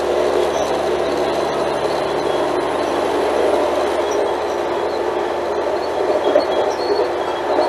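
Alstom Coradia Lint 41 diesel railcar running, a steady dense drone of engine and rolling noise. A low steady hum in it drops away about two and a half seconds in.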